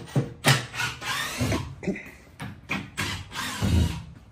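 Irregular handling noise: about a dozen short knocks, bumps and rustles in quick, uneven succession, some with a dull thud.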